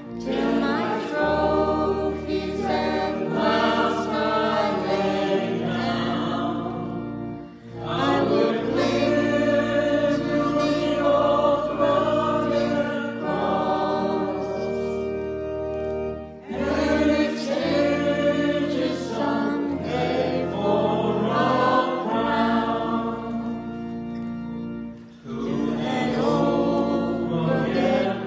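A choir singing a slow hymn over steady held accompanying chords, in long phrases with brief pauses about every eight or nine seconds.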